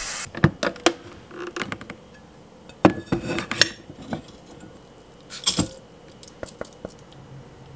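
A few sharp clinks and knocks as a cooker's metal inner pot and a mesh strainer are handled, and washed rice is tipped from the strainer into the pot.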